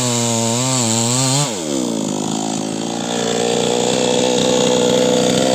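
New West 628 two-stroke chainsaw with a 24-inch bar running at high revs, its pitch dipping twice as it is loaded. About a second and a half in, the revs fall away sharply, then the engine holds a lower, steady note that slowly gets louder.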